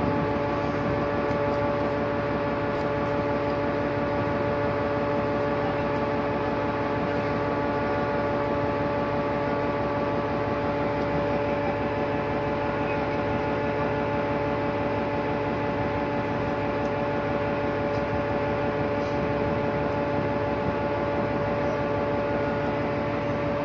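Steady drone of a ship's machinery running at anchor: an even hum with several steady tones over a constant rushing noise, unchanging throughout.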